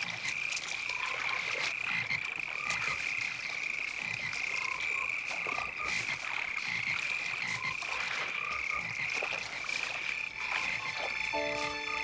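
Chorus of frogs calling at a pond: a steady high-pitched chorus with scattered shorter calls and clicks over it. Soft music with sustained notes comes in near the end.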